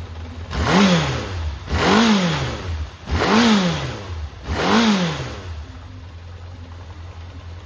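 Honda CB750F air-cooled inline-four engine idling, then blipped four times in quick succession, each rev rising and falling in pitch before it settles back to idle. The seller describes it as running perfectly, with no abnormal noise.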